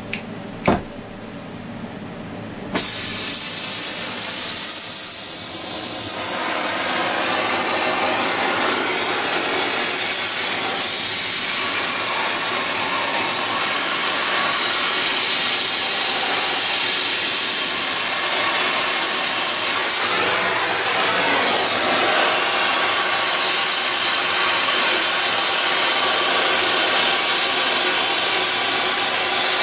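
Oxy-acetylene torch with a rosebud heating tip: a sharp click about a second in, then the torch lights at about three seconds and burns with a loud, steady hiss as it heats a steel pipe.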